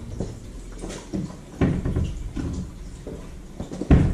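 Scattered knocks and clunks of kitchen handling, with the loudest thud near the end.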